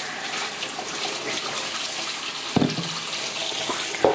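Water running steadily, with two short knocks, one past the middle and one near the end.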